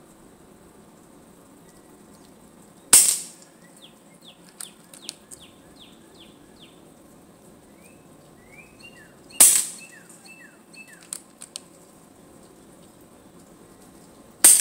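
Three shots from a .22 Hatsan Jet II PCP air rifle, about six and five seconds apart, the last right at the end. Between the shots a small bird chirps in quick runs of short falling notes.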